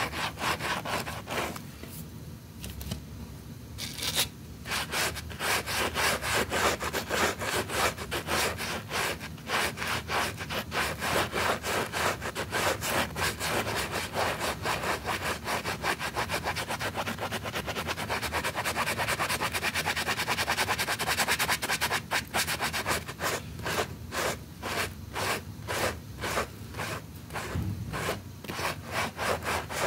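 A brush scrubbing a wet rug in quick back-and-forth strokes, about three or four a second, with a short pause about two seconds in.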